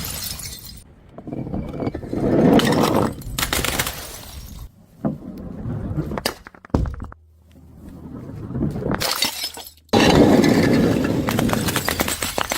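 Glass bottles smashing on stairs one after another, each crash followed by the clatter and tinkle of shards; the loudest crash comes suddenly near the end.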